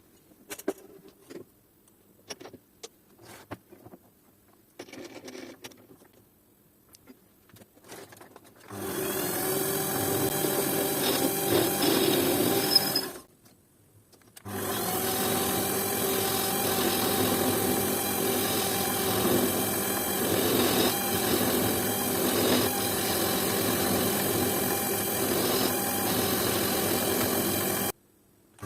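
Light clicks and knocks of parts being handled, then an electric power tool cutting or grinding: it runs steadily for about four seconds, stops briefly, then runs again for about thirteen seconds and cuts off suddenly near the end.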